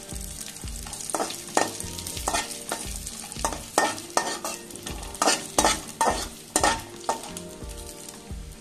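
Slotted steel spatula scraping and clinking against an aluminium kadai as cashews and raisins are stirred in hot ghee, a dozen or so irregular strokes over a faint frying sizzle. The raisins are being fried until they puff up.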